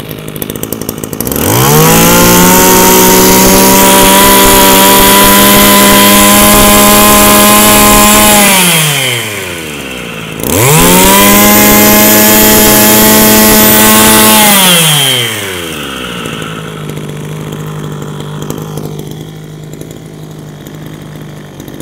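Stihl FS26S 26 cc two-stroke brush cutter engine idling, then revved to full throttle twice, each time held for about five or six seconds before falling back to idle. It idles smoothly and picks up the throttle sharply, a sign of an engine in good running order.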